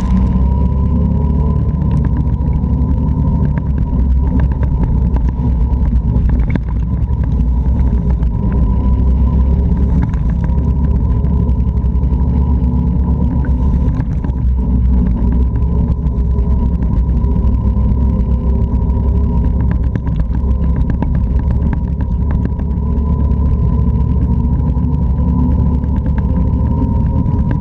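Can-Am Outlander 650 ATV's V-twin engine running while the quad is ridden, its pitch rising and falling with the throttle over a heavy low rumble.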